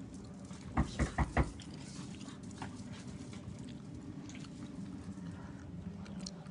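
A dog barking four times in quick succession, answering the doorbell.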